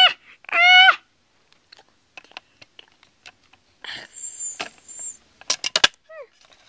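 Two short high-pitched vocal calls from a child in the first second, then the handling of plastic toy figurines and a playset: faint clicks and taps, a brief scrape, and a quick run of plastic knocks about five and a half seconds in. A short falling squeak follows near the end.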